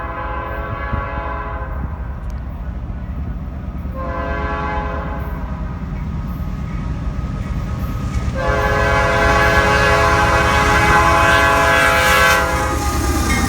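Nathan P5 five-chime air horn on a freight locomotive sounding three blasts: one ending about two seconds in, a shorter one about four seconds in, and a long one from about eight seconds in until just before the end. The low, steady rumble of the passing train runs underneath.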